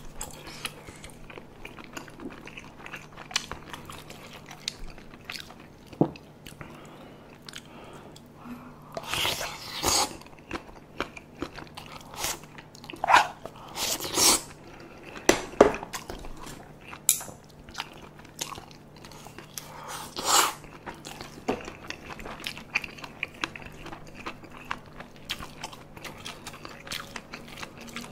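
Close-miked chewing and biting of soft, saucy spicy tteokbokki and boneless chicken feet, with wet squishy mouth clicks. Several loud slurps stand out, around the middle of the stretch.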